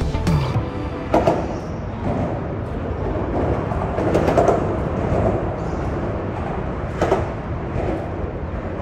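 Steady rumble of traffic on a highway bridge overhead, with a few brief louder swells as vehicles pass.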